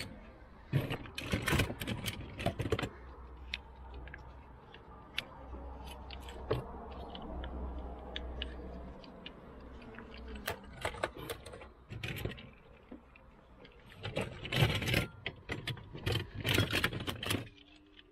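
Small toy cars clicking and clattering against one another as hands rummage through a cardboard box of them, with the busiest clatter about a second in and again near the end.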